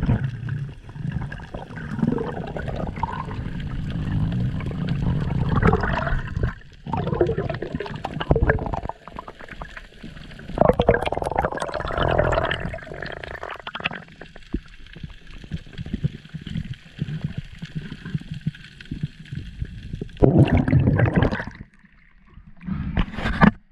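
Seawater sloshing and gurgling around a camera moving just under and through the sea surface, with bubbling. It comes and goes unevenly, with the strongest surges near the end.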